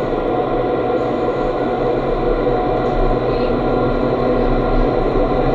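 Indoor skydiving vertical wind tunnel running: a loud, steady rush of air through the flight chamber with a constant fan hum.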